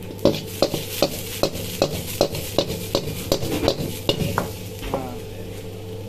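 Shredded vegetables stir-frying in a wok over a gas burner. The wok is tossed with a rhythmic metal knocking about two and a half times a second, over sizzling oil and a steady hum from the range. The knocking stops about four and a half seconds in.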